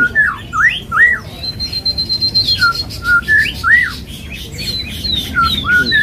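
White-rumped shama (murai batu) singing a varied whistled song. Its song is a run of repeated arched notes, with a long, steady high whistle about a second and a half in and a series of short falling high notes near the end.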